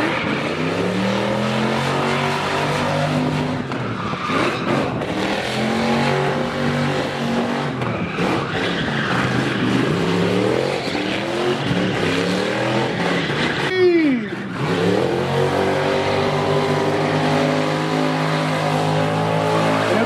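Car engine revving hard during a burnout, holding high revs and dipping and climbing again over and over, with tyres screeching as the car spins donuts. About two-thirds of the way through, the revs fall sharply, then build back up.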